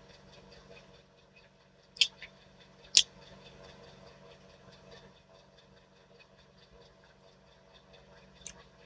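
Two short, sharp sounds about a second apart over quiet room tone: small sips and mouth noises from drinking through a straw.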